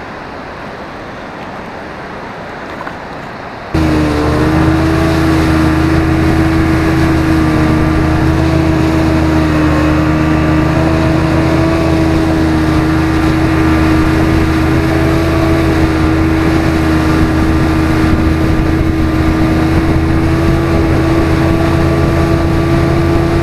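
Boat's outboard motor running steadily at speed, a loud, even drone that starts abruptly about four seconds in after a stretch of quieter steady noise.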